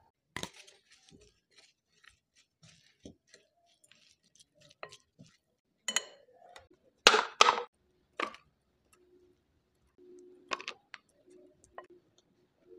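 A spoon clinking and scraping against a glass mixing bowl while stirring corn kernels with spices: scattered sharp clinks, the loudest a quick cluster about seven seconds in.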